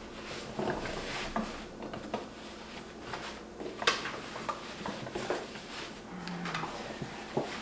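Fabric handling: the shirt being moved and shown, rustling, with scattered small clicks and knocks and one sharper click about four seconds in.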